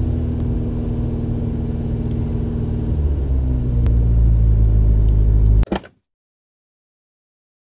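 Dodge Charger's engine running with a deep, steady rumble that grows louder about halfway through, then cuts off abruptly with a short click about six seconds in.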